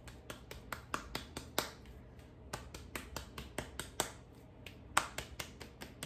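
Fingers pressing and pounding into a ball of moist arepa corn dough held in the palm, hollowing out a well: a quick, uneven run of small sharp wet pats and clicks, pausing briefly twice.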